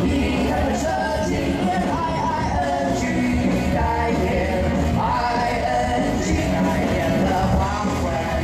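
Pop-rock song with a singing voice, played loud over a PA with a steady beat.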